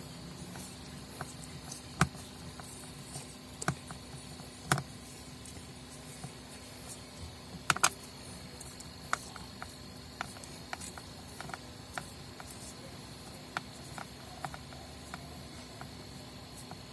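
Scattered light clicks and taps of plastic housing parts and screws being handled as an electric sander is taken apart by hand, over a faint steady high-pitched tone.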